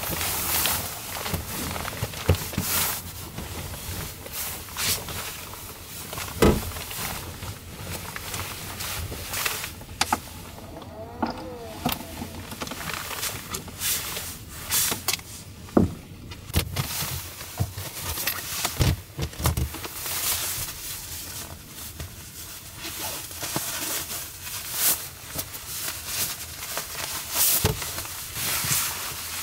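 Fabric rustling and handling noises as a blanket, a jacket and nylon down booties are moved about, with scattered knocks and clicks.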